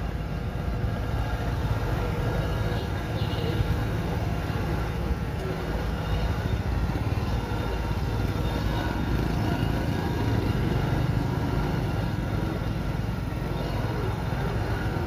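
Kubota DC-93 combine harvester's diesel engine running steadily as the machine travels along on its rubber tracks.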